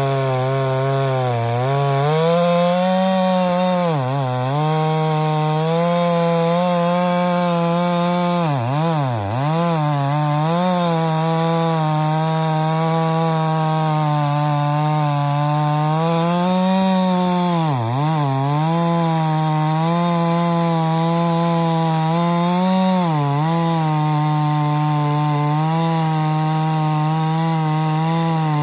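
KS699 chainsaw being broken in, running hard and cutting thin ribbons from a dry red elm trunk. The engine note holds steady and dips in pitch briefly four times.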